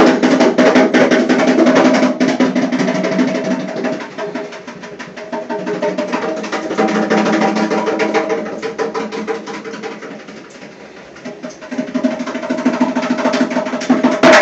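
Fast hand drumming on a steel kitchen sink and the things in it: a dense run of rapid strokes over a ringing tone. It eases off twice and picks up again.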